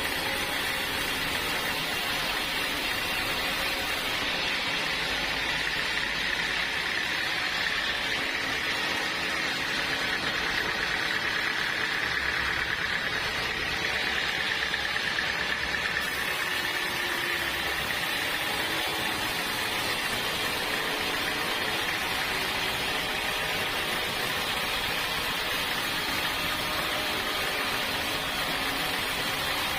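Sawmill saw running steadily while cutting through a log of dense acacia wood, a constant machine noise with a high whine that swells through the middle and then eases back.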